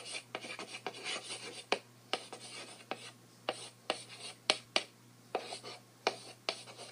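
Chalk writing on a blackboard: a run of short scratchy strokes and sharp taps, with brief pauses between words.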